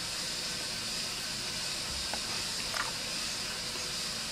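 Steady background hiss with a few faint, light ticks about two and three seconds in, as a knife works through a banana.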